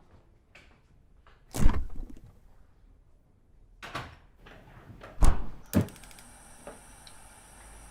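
A few separate thuds and knocks, the loudest about a second and a half in and about five seconds in, then a steady hiss that starts about six seconds in.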